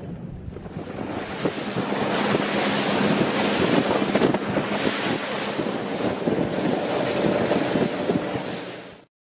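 Wind rushing over the microphone and water hissing past a rigid inflatable boat under way at speed, with the boat's engine running low underneath. It builds about a second in and cuts off suddenly near the end.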